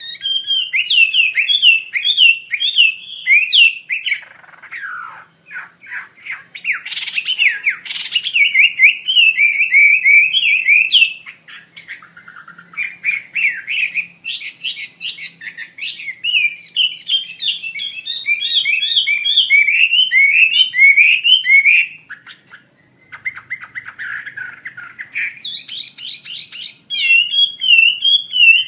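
Chinese hwamei in full, vigorous song: loud, varied runs of rapid repeated whistled notes and slurred phrases, broken by a few short pauses.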